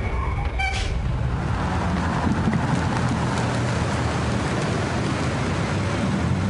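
A compact SUV driving slowly along a street: a steady hum of engine and tyre noise.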